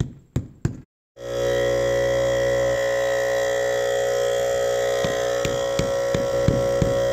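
A few sharp knocks, about three a second, then after a short break an air compressor runs with a steady, loud hum, filling a tire through its hose; light knocks come back over the hum in the last couple of seconds.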